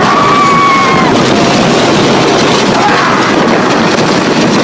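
Wooden roller coaster ride at speed: the train rattles and rumbles along the track under a heavy rush of wind on the microphone, with held, slightly falling yells from riders, once at the start and again about three seconds in.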